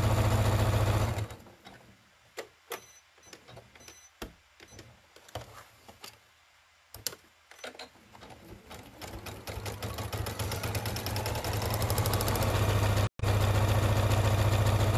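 Domestic sewing machine stitching fabric strips at a fast, steady speed, stopping about a second in. A few scattered clicks follow, then from about eight seconds the machine starts slowly and speeds back up to a fast, steady run.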